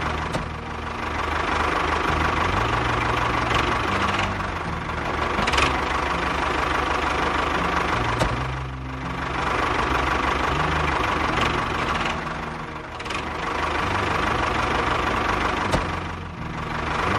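A motor running steadily with an engine-like note, its sound dipping briefly about every four seconds.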